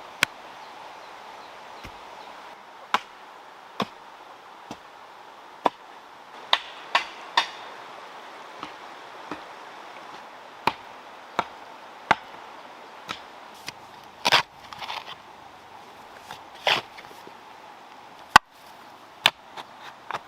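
A series of sharp chopping strikes at uneven spacing, roughly one a second, over a steady background hiss. A few strikes come in quick pairs, and two longer, rougher strokes come in the second half.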